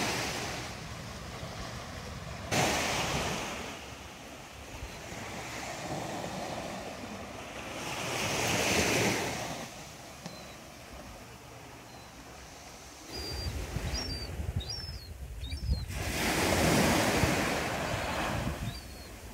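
Small waves breaking and washing up a sand beach, a surge every few seconds. Wind buffets the microphone in the second half, and a few faint high bird chirps come through near the end.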